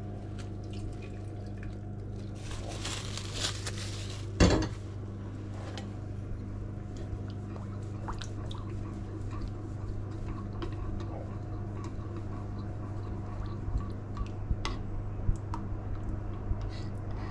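Kitchen clatter of utensils and dishes with some liquid sounds, over a steady low hum. One sharp knock about four and a half seconds in is the loudest sound, and light clicks come near the end.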